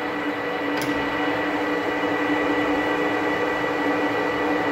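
Manual metal lathe running in reverse, with a steady hum and a constant high whine from its motor and gearing. The carriage is being power-driven back out along the 4.5 TPI thread with the half nut engaged, as an imperial thread cut on a metric lead screw requires.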